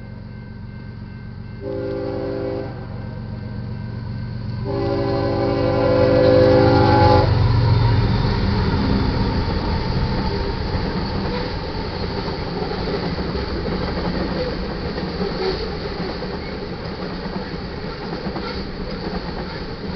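Multi-chime horn of a BNSF freight train led by a GE ES44C4 locomotive blowing for a grade crossing: a short blast about two seconds in, then a longer blast of about two and a half seconds as the locomotives pass with a deep rumble. Covered hopper cars then roll by with a steady wheel rumble and faint regular clicks over the rail joints.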